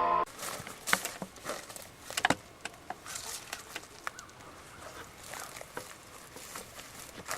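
Music cuts off just after the start. Then come quiet, irregular light rustles and knocks, the clearest about a second in and a little over two seconds in.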